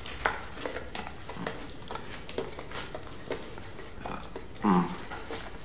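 High-heeled footsteps clicking across a hard floor, about two steps a second. A short, low voice sound, dropping in pitch, is heard about four and a half seconds in.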